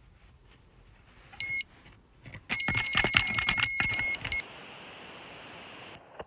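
Electronic carp bite alarm: one short beep, then a continuous tone held for about a second and a half, the sign of a carp running off with the line (a take). A softer steady hiss follows for about a second and a half.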